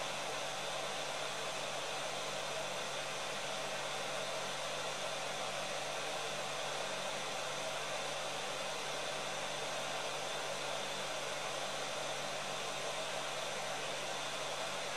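Uten 959D hot air rework station's handpiece fan blowing a steady hiss of air in its cool-down cycle, the heater off and the nozzle temperature falling.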